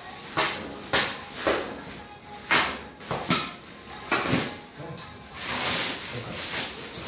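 Plastic stretch-wrap film being torn and pulled open by hand, crinkling in sharp bursts about twice a second. About five seconds in it turns to a continuous rustle as the loosened film is peeled back.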